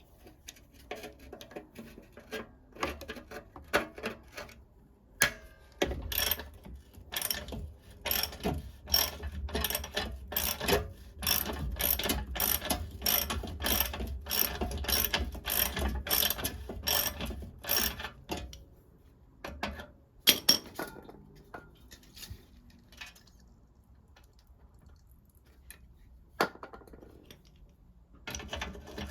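Hand ratchet clicking in quick repeated strokes, about two clicks a second, as a rusted bumper-iron bolt is turned. The clicking stops for several seconds after about two-thirds of the way in, with a couple of single clicks, and picks up again near the end.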